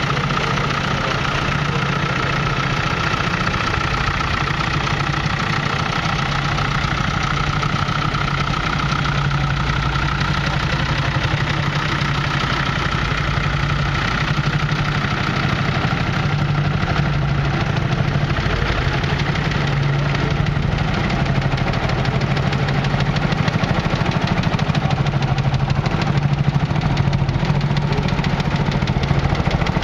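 Engines of old tractors running at low speed as a line of tractors drives slowly past, a steady low engine hum that gets slightly louder near the end.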